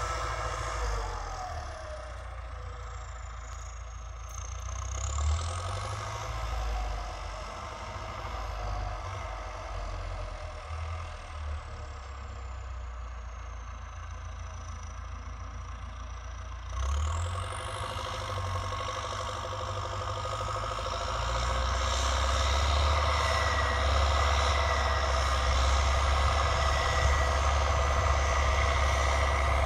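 Belarus MTZ 1025.4 tractor's turbocharged diesel engine running through a straight-pipe exhaust, with a high turbo whistle that slides down and up in pitch. About halfway through the revs jump, and over the last third the engine runs louder and deeper, pulling under load.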